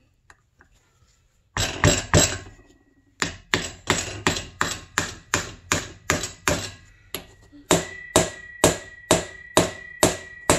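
Hammer blows driving a shaft into a gear heated to 275 degrees to expand it for a press fit. Three quick blows, then a steady run of sharp strikes, about three a second and slowing to about two, the later ones with a short metallic ring.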